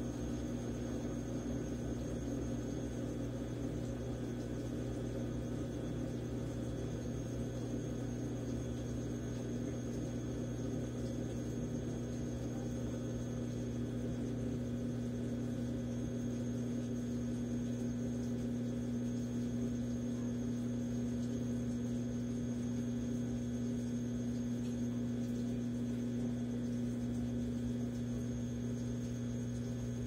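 Consul 13 kg top-load washing machine running mid-cycle with a steady low electric hum.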